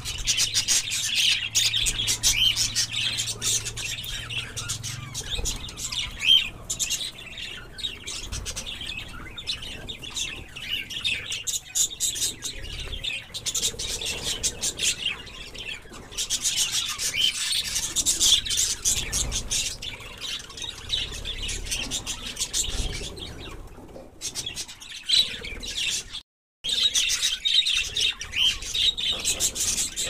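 A large flock of budgerigars chattering, with many overlapping high chirps and warbles at once. The chatter briefly cuts out to silence about three-quarters of the way through.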